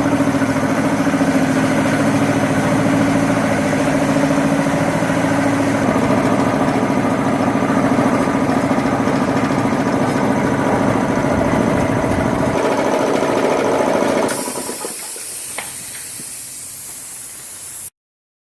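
Three-phase electric air compressor running steadily, motor and pump pulsing evenly, run on 208 volts with its 480-volt contactor coils forced to hold in. About fourteen seconds in the motor shuts off and a hiss of escaping air carries on until the sound cuts off.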